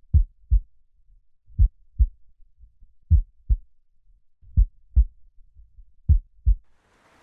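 Slow heartbeat sound effect: five deep double thumps (lub-dub), about a second and a half apart.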